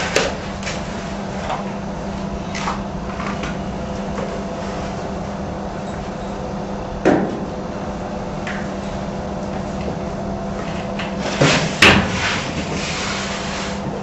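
Metal clunks against a corrugated steel shipping container wall as detectors and equipment are handled and set in place: a few sharp knocks, the loudest a double knock near the end, over a steady low hum.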